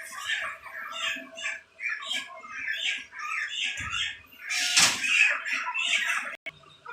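A flock of broiler chickens calling, many short overlapping squawks and cheeps at once, with a loud rustling clatter about five seconds in.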